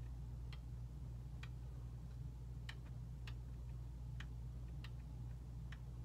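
Light, sharp clicks about once a second, irregularly spaced, from a longarm quilting machine's needle and hook mechanism being turned slowly by hand, over a steady low hum.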